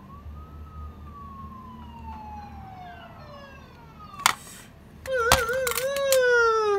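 A siren wail. One long tone slides slowly down, and after a click a louder wail wobbles a few times, then slides down again and cuts off near the end.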